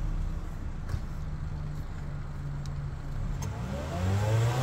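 Honda car's engine idling steadily, heard from behind at the exhaust. It revs up near the end.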